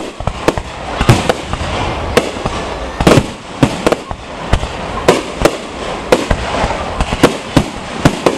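Aerial fireworks display: shells bursting one after another in a rapid string of sharp bangs, two or three a second, with the heaviest boom about three seconds in.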